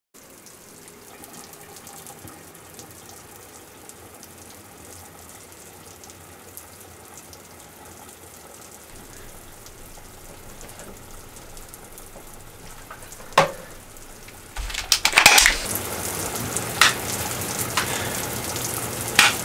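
Faint room tone, a single sharp knock about 13 seconds in, then water starts running steadily about a second later, with a few knocks and clatters over it.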